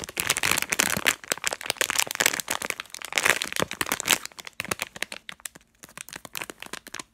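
Plastic Haribo gummy-candy bag crinkling and crackling in the hands as it is squeezed and turned over, a dense irregular stream of crackles that eases off somewhat in the second half.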